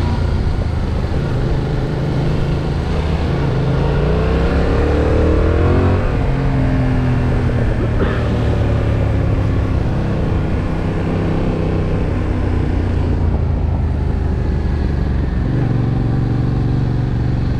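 Yamaha MT-07's parallel-twin engine running hard on track, its pitch climbing for a couple of seconds then dropping about six seconds in as the rider eases off, otherwise holding fairly steady.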